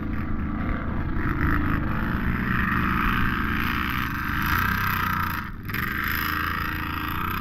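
An off-road vehicle's engine running steadily under load, with a brief drop in level about five and a half seconds in.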